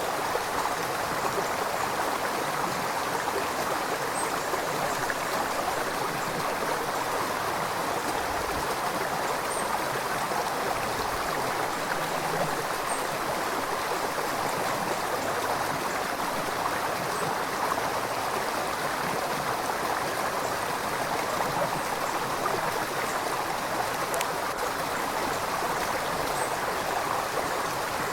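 River water flowing steadily over rocks: a continuous, even rushing with a little gurgling.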